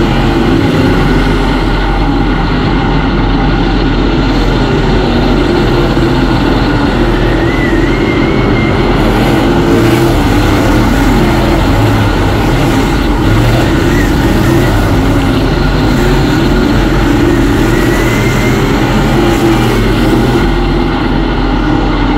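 Dirt track race car's V8 engine running, heard from inside the cockpit as a loud, steady drone with little rise or fall.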